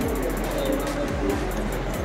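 Background music with a steady beat: deep thuds that drop in pitch about twice a second, under fast high ticking.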